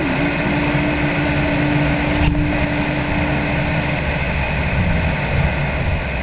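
Cessna 172's piston engine running at low power as the plane rolls along the pavement after landing. A steady single tone sounds over it and stops about four seconds in.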